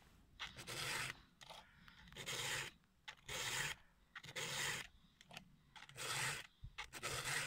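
A round chainsaw file rasping across the cutter teeth of a Husqvarna chainsaw chain, sharpening it by hand. There are about six even push strokes, roughly one a second, each a short scrape.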